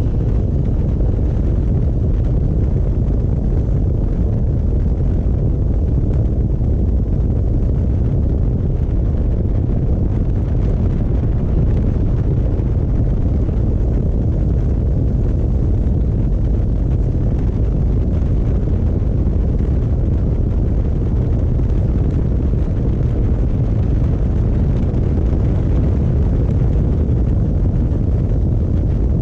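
Steady low rumble of wind buffeting the camera microphone on a Harley-Davidson Road Glide riding at road speed, mixed with the motorcycle running.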